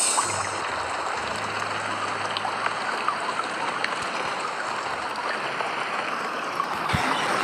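Steady hiss of heavy rain, with scattered small ticks of drops.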